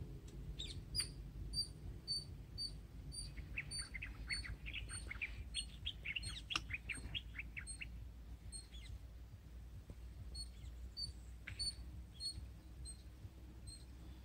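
Birds calling: a short, high note repeated about twice a second, with a flurry of quick descending chirps in the middle, over a low steady rumble.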